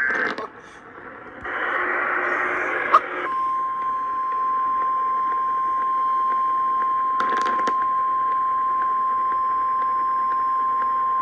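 Radio static, then the NOAA Weather Radio 1050 Hz warning alarm tone comes on about three seconds in and holds one steady pitch, with a brief crackle partway through. The tone is the alert signal ahead of a severe thunderstorm warning.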